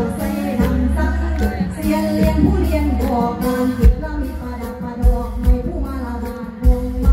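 Woman singing mor lam through a microphone over an amplified live band: a steady bass line under the first half, then four heavy low beats in the second half.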